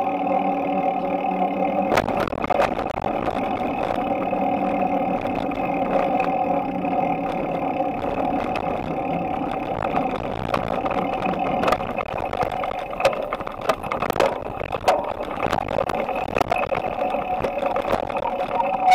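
Steady engine-like hum with scattered knocks and rattles, picked up by a handlebar-mounted camera on a moving bicycle.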